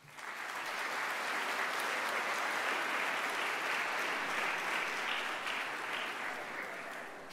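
Audience applauding: the clapping starts all at once and dies down a little near the end.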